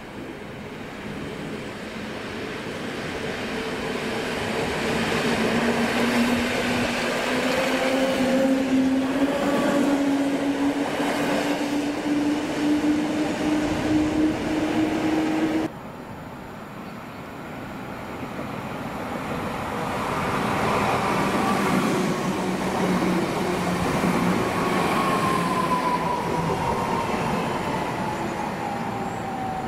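Train passing, with a whine that slowly rises in pitch over a steady rumble. About halfway through the sound cuts abruptly to a second passing train, whose whine slides down in pitch.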